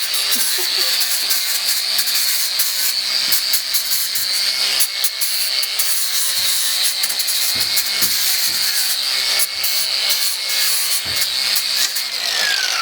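Rasping, scraping work on metal, a broken motorcycle brake lever being cut or filed to shape, going on steadily with irregular strokes. A whine falls steeply in pitch near the end.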